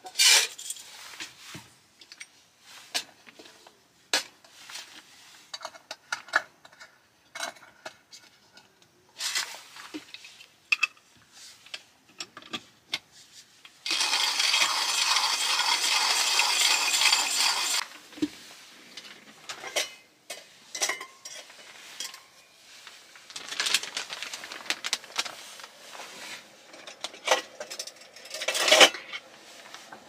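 Scattered clinks and knocks of a metal cup and small utensils on a table, broken about halfway through by a steady rasping grind of about four seconds from a hand-cranked coffee grinder. Near the end a kitchen drawer slides open and metal cutlery clatters.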